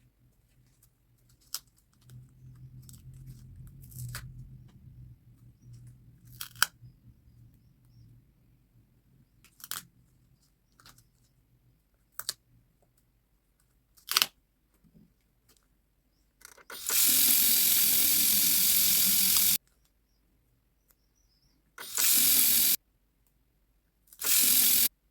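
Paper-crafting handling sounds: scattered light taps and clicks with soft paper rustling, then three loud stretches of ripping noise, one of about three seconds and two short ones near the end, as of tape or paper being torn.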